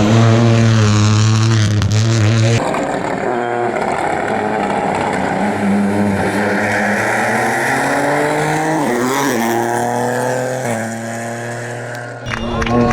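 Rally car engines at speed on a stage, in several clips cut together. In the middle stretch one car's engine pitch climbs steadily as it accelerates.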